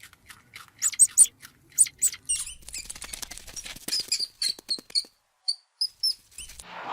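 An animal's rapid, high-pitched chirps and clicks, turning about two seconds in to a run of short, thin squeaks.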